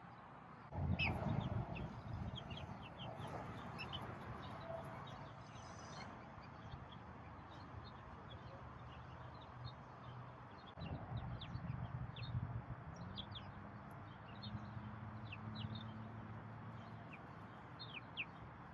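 Young chickens peeping: many short, high, falling chirps scattered throughout, over a low wind rumble on the microphone that swells about a second in and again around eleven seconds in.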